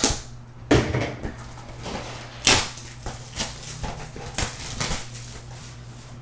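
Plastic shrink wrap crinkling and tearing as a sealed box of trading cards is unwrapped and handled, a run of sharp crackles with the loudest about two and a half seconds in.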